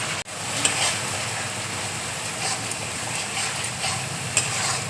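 Spice paste (masala with yogurt and cashew paste) frying in oil in a pan, sizzling steadily, with a spatula stirring it and knocking the pan a few times.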